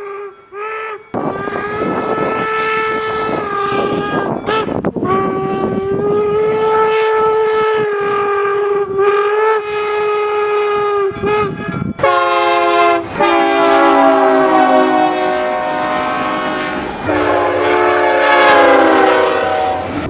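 Locomotive air horns blowing long blasts, several tones sounding together as a chord, with short breaks between blasts. About twelve seconds in it changes abruptly to a different horn with a lower, fuller chord.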